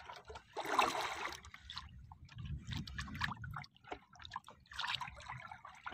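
Sea water splashing and trickling against the side of a small outrigger boat in irregular bursts, over a low rumble.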